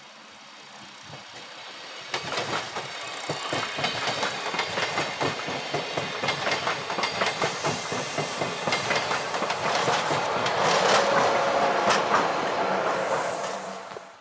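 A red and grey ÖBB regional push-pull passenger train passing close by, its wheels clattering in a steady rhythm over the rail joints. The clatter swells from about two seconds in, is loudest about eleven seconds in, and cuts off abruptly near the end.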